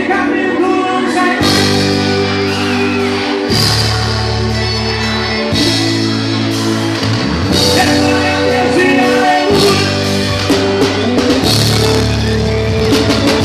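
Live worship band playing with singing: electric bass holding long notes and a drum kit with cymbal crashes about every two seconds.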